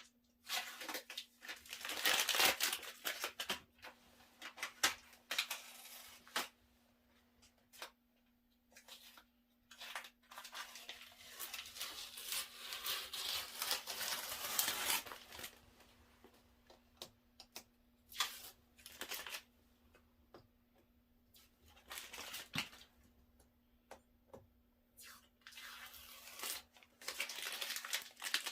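Masking tape being peeled off a freshly spray-painted wheel and crumpled: irregular stretches of ripping and crinkling, with short snaps in between.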